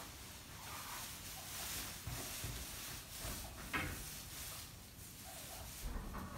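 Calves shuffling at a metal feed barrier in straw, with soft knocks and one sharper knock a little under four seconds in.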